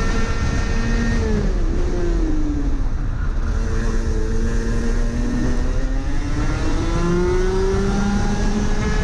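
Rotax Max 125 cc two-stroke kart engine running at high revs on a straight. About a second in its pitch falls as the kart brakes hard into a slow corner. Near the end it climbs back up as the kart accelerates out.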